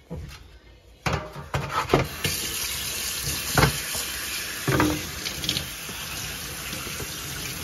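A few knocks as a tray of raw chicken is handled on the stainless steel sink's wire grid. About two seconds in, the kitchen faucet opens and water runs steadily into the stainless steel sink, splashing over the chicken in a metal tray, with a couple more knocks.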